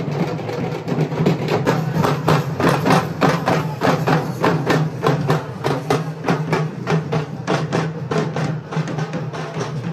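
Festival drumming: fast, evenly spaced drum strikes in a steady rhythm over a steady low hum.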